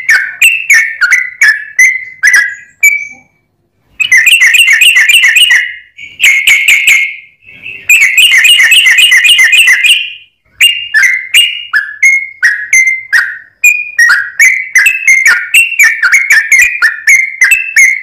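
Yellow-vented bulbul singing loudly at close range: quick runs of bubbly whistled notes, most of them falling, with two stretches of fast chattering trills in the middle and short pauses between phrases.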